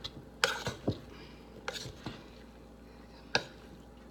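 Wooden spoon stirring in a large metal stockpot, knocking sharply against the pot a few times.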